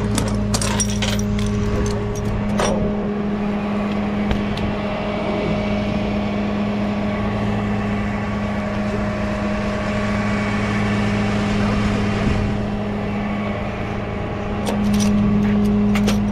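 Flatbed tow truck's engine idling with a steady hum. Strap ratchet and hook hardware click and clink during the first few seconds as the load is unstrapped.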